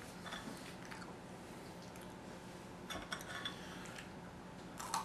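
Faint, scattered clicks and crunches as a crunchy snack is picked from a serving tray and chewed.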